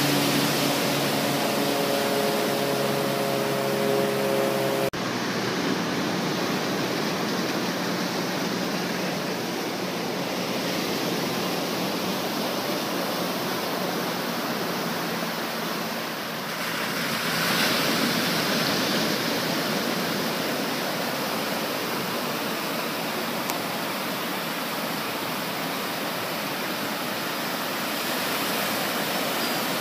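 Pacific Ocean surf on a sandy beach: a steady rush of small waves breaking and washing up the shore, swelling louder about eighteen seconds in. For the first five seconds a steady hum of several tones sounds over it, ending abruptly.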